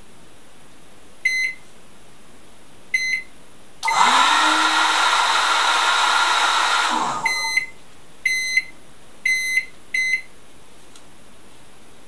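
A microwave oven timer board beeps twice, then the hair dryer switched by its relay starts up: its motor rises to speed and runs loudly for about three seconds before cutting off and winding down. The timer then beeps four times as the countdown finishes.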